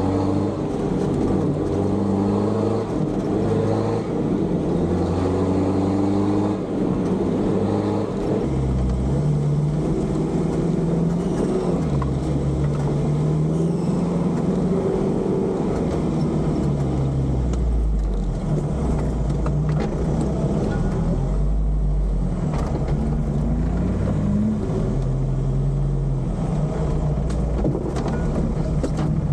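Off-road 4x4's engine running under load, its revs stepping up and down as it drives over a rough dirt trail, with knocks and rattles from the body and suspension over the bumps. Heard from inside the caged cockpit.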